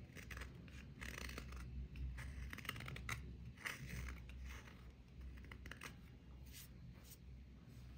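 Small serrated knife scraping and prising a hard dried grey crust off a curved surface, in short irregular scratchy strokes as flakes break away.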